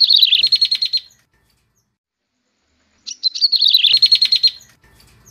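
Recorded song of the prenjak tebu, a prinia, played as a bird-trapping lure call: two high-pitched phrases, each a few sharp notes running into a fast, even trill, about two seconds apart.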